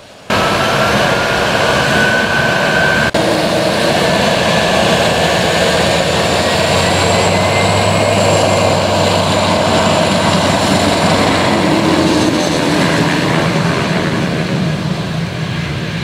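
Beechcraft King Air 200's twin Pratt & Whitney PT6A turboprops running as the aircraft taxis. It is a loud, steady turbine whine with propeller roar, and a high tone rises slightly in pitch over the first few seconds.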